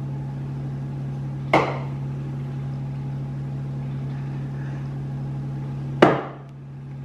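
Two knocks on a tabletop: an aluminium beer can set down about one and a half seconds in, then a heavier knock near the end as a glass beer mug is put down. A steady low hum runs underneath.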